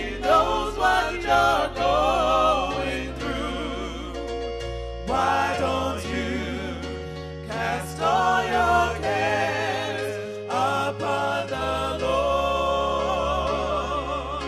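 Gospel music: voices singing with vibrato over sustained low bass notes.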